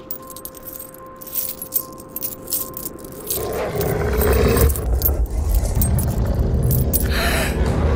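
Light metallic jingling and clinking over a faint steady hum, then about three seconds in a deep rumble swells in and grows loud.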